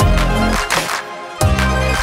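Electronic background music with a heavy bass beat; a new low bass note hits about one and a half seconds in.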